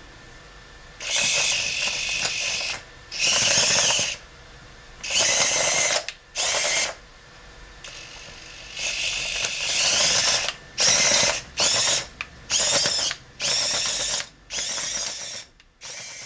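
Drive motors of a small 3D-printed tracked robot whirring in short stop-start bursts, about ten in all, as it is driven back and forth with a gamepad. Each burst lasts under two seconds, and the later ones come quicker and shorter.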